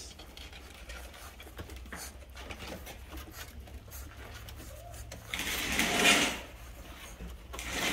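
Rottweiler puppies sniffing, licking and mouthing a hand-held raw chicken leg quarter: soft wet smacking and small clicks over a steady low hum, with a louder rustling, breathy burst about five and a half seconds in.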